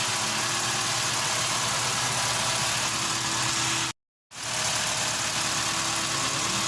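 VW Polo Vivo's 1.4-litre four-cylinder petrol engine (CLP) idling steadily, running smoothly on its first start after an oil and filter change. The sound drops out completely for a moment about four seconds in.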